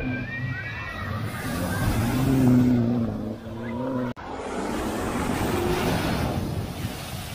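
Cars driving through a flooded ford. First comes a steady engine hum as a car pushes through the water, with splashing underneath. About four seconds in, after a cut, there is a loud, even rush of spray thrown up by an SUV's wheels ploughing through the water.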